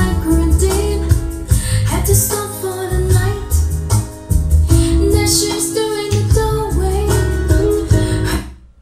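Music: a song with a high singing voice over deep bass and drums, stopping abruptly near the end.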